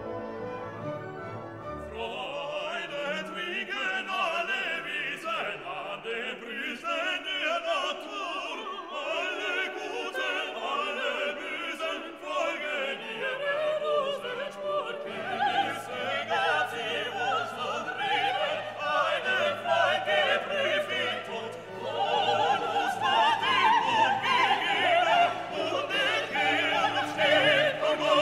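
Background classical music: an orchestra with singing voices, filling out about two seconds in and growing louder in the last third.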